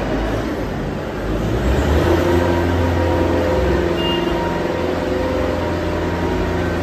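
A vehicle engine running, a steady low rumble with a faint hum above it that gets louder about a second and a half in.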